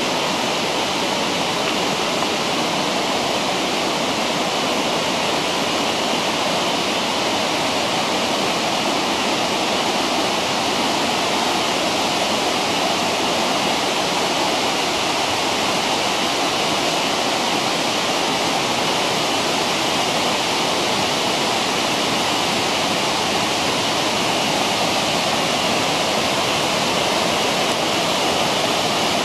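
Mountain stream rushing steadily over boulders in a rocky gorge, a continuous even roar of white water.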